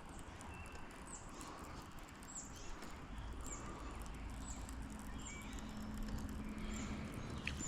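A bird calling over and over, a short high chirp sliding downward, about once a second, over a faint low outdoor background.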